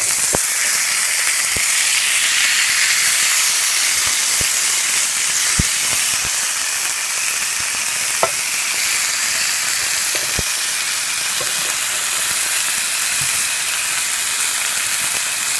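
Steak searing in a hot skillet: a steady sizzle of fat frying, with a few sharp clicks scattered through it.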